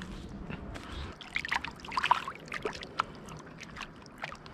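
Light splashing and trickling of shallow river water, stirred by hands handling a trout at the water's edge. The splashes come as a cluster of short sounds, most of them between about one and three seconds in.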